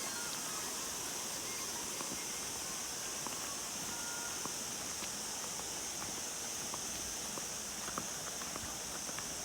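Footsteps on a rocky trail: scattered light clicks and crunches over a steady high-pitched hiss of outdoor ambience.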